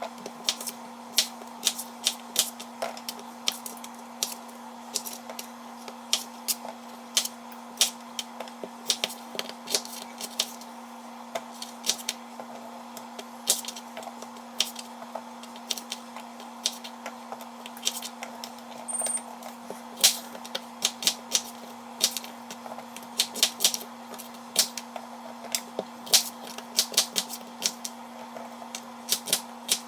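Rapid, irregular light clicks and taps, several a second, over a steady electrical hum.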